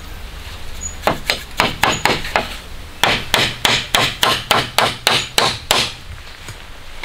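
Hammer blows: a run of about six quick strikes, a short pause, then about a dozen more at roughly four a second.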